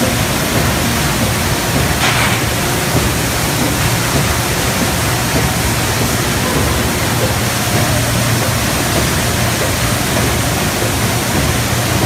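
Imanpack Moonlight PBB horizontal flow-wrapping machine running, a loud steady noise with a low hum underneath, as it wraps stacks of plastic plates in film. A short noise stands out about two seconds in.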